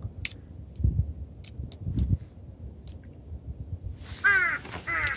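A crow cawing twice, a harsh call about four seconds in and a shorter one near the end. Light clicks and a couple of soft knocks come before it.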